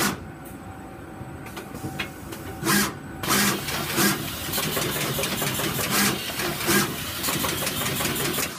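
Universal Instruments GSM FlexJet placement head on a pick-and-place machine running, a busy irregular clatter of mechanical clicks, low knocks and short hissing bursts. It grows much busier about three seconds in as the head works through its placements.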